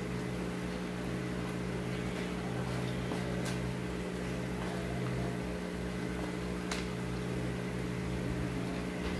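Steady low machine hum, with a few faint clicks scattered through it.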